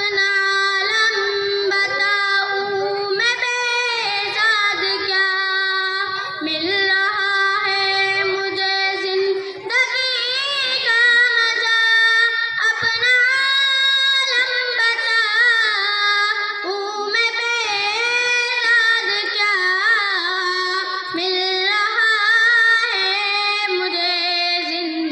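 A girl singing an Urdu naat solo into a microphone, in long held notes that bend and waver in pitch.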